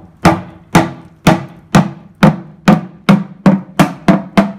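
Hammer blows on the steel oil pan of a Dodge 230 flathead six, knocking the stuck pan loose from the block: about eleven sharp metallic strikes, each ringing briefly, coming roughly twice a second and quickening near the end.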